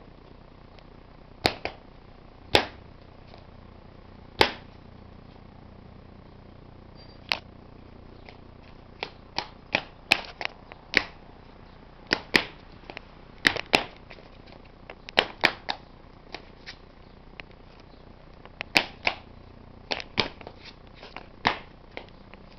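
Sharp, irregular clicks: a few spaced a second or two apart at first, then coming in quick clusters, some of them loud.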